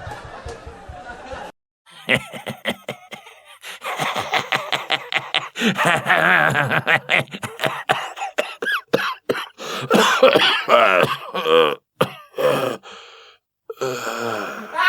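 Human laughter in rapid voiced pulses with wavering pitch: several short laugh clips cut one after another, with brief silent gaps between them.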